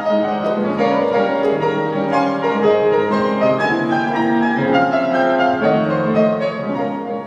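Piano music playing, with held notes that change every half second or so, fading out near the end.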